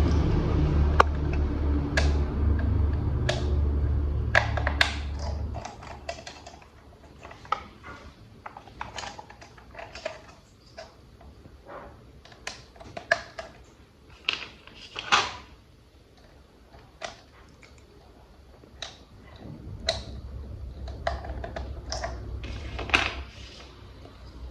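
Plastic toy train parts being handled and fitted together: a string of irregular sharp clicks and taps. A low steady hum runs under the first five seconds or so, stops, and comes back about three-quarters of the way through.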